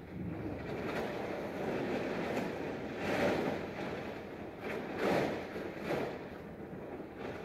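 A plastic tarp rustling and crinkling as it is handled and draped over a standing horse's back, rising in louder swells three times in the second half.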